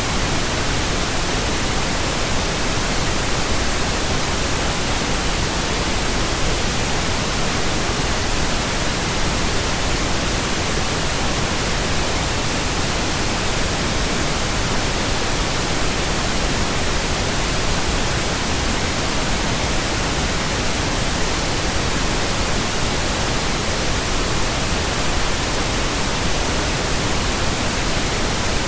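Steady, unbroken pink noise: an even hiss with no changes in level or character.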